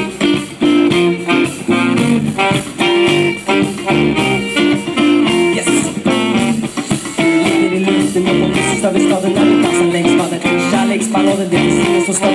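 Live band playing an instrumental passage between sung verses, with electric guitar prominent over bass guitar and a drum kit keeping a steady beat.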